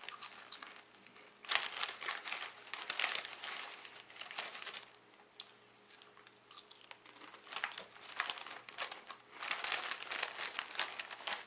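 Foil crisp bag (Lorenz Crunchips) crinkling in several bursts as a hand reaches in and handles it, with crunching of potato chips being bitten and chewed.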